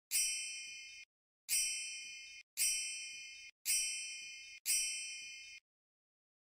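Five high, bright ding sound effects in a row, about one a second, each struck sharply and dying away. They are bell-like chimes marking on-screen captions as they pop up.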